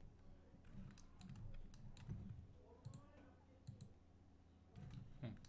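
Faint, scattered clicks from a computer mouse and keyboard, about ten sharp clicks at irregular intervals.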